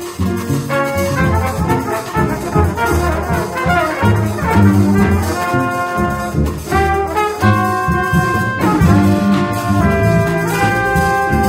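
Trumpet and trombone playing a jazz tune together over upright bass and drums. Quick runs of notes give way to longer held notes about halfway through.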